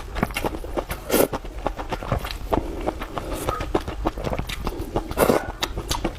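Close-miked eating sounds: steady chewing with many quick wet clicks and smacks, and two louder bites or slurps, about a second in and near the end.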